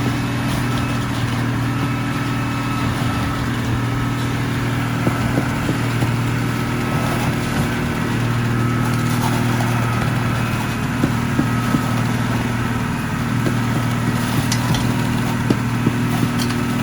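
Diesel engine of a truck-mounted concrete boom pump running at a steady speed, with a few scattered light knocks from work on the pour.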